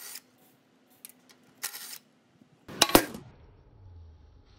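Short metallic clinks and scrapes of parts and hand tools, with a louder clatter just under three seconds in.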